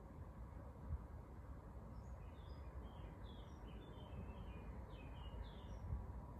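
Faint birds chirping, a run of short high twitters starting about two seconds in and stopping shortly before the end, over a low steady room rumble.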